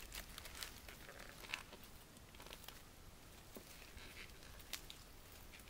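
Faint crackling and scratching of birch bark being worked by hand along a fallen log, with scattered small clicks and a couple of sharper ticks.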